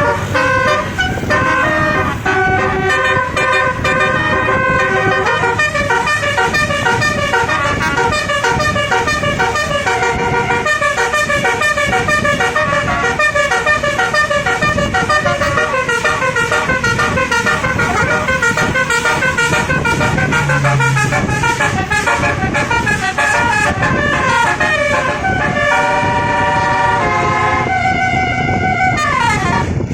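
Basuri multi-tone vehicle horn, a 36-note telolet horn, playing a quick melody of changing notes, with a falling glide near the end.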